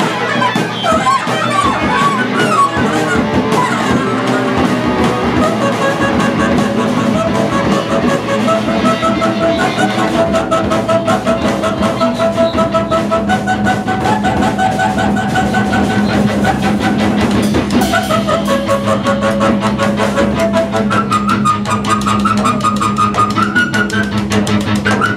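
A live rock band of electric guitar, drum kit and reeds playing loudly, with long held, wavering notes over a steady low drone.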